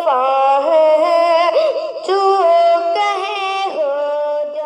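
A boy's voice singing a naat, a devotional song in praise of the Prophet, in long drawn-out notes with wavering ornaments and no instrument heard.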